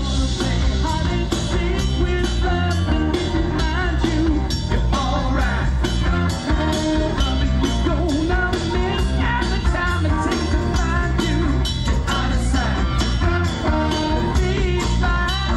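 Live band playing with drum kit and electric bass keeping a steady beat, with a lead vocal over it.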